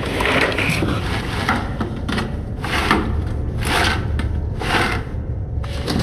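A man dragging himself through a narrow ventilation duct, making short rasping scrapes about once a second over a low steady rumble.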